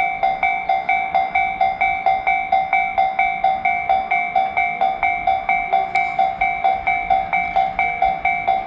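Japanese railroad crossing alarm (fumikiri) ringing its steady "kan-kan" bell, about two and a half strokes a second.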